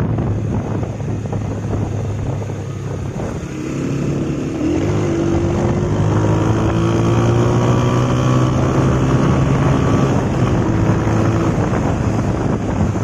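Engine of the vehicle carrying the camera, running under way, with wind rushing over the microphone. About four seconds in the engine tone grows stronger and shifts slightly in pitch, holding until near the end.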